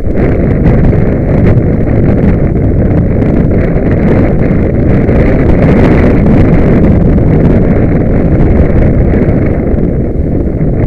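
Heavy wind buffeting the microphone: a loud, steady rumbling rush with no clear engine note or distinct knocks.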